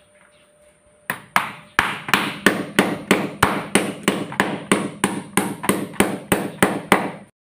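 Hammer blows on a wooden board set against a concrete wall: a quick, even run of about nineteen strikes, roughly three a second, starting about a second in and stopping abruptly near the end.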